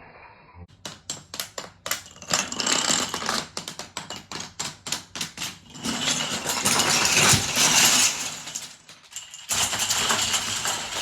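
Kapla wooden planks toppling in a chain reaction: a run of quick wooden clicks and clacks that thickens into a dense clattering cascade, dies down briefly near the end, then clatters on.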